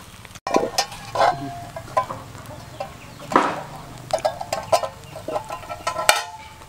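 A run of short, irregular animal calls, starting abruptly about half a second in.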